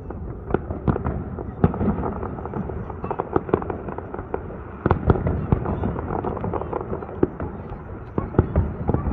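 Fireworks display: an irregular string of sharp bangs and crackles over a steady rumble, with the densest cluster of bursts about five seconds in and another near the end.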